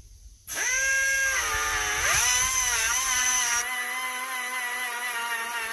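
Small high-speed grinder with a cut-off wheel starting up with a high whine and cutting through bulk chainsaw chain, its pitch sagging as the wheel bites into the steel and then holding steady under load. This is the saw chain being cut to length after its drive links were counted.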